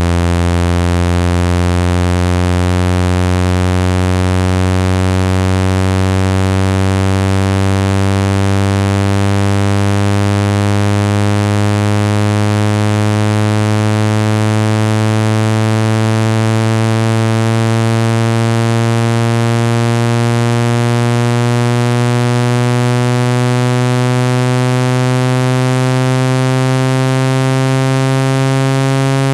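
Water-ejection speaker-cleaning tone: a loud, buzzy, low synthesized tone that rises slowly and evenly in pitch. It is played to vibrate water and dust out of a phone speaker.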